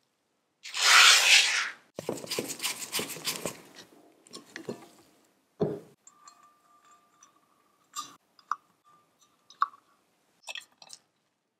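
Thin metal wire stays clinking and rattling as they are handled and hooked into holes in the painted steel column of a tin-toy carousel. A loud rustle comes about a second in, a dense patter of small clinks follows, then a single knock and light metallic scrapes and ticks as the wire ends go into the cap.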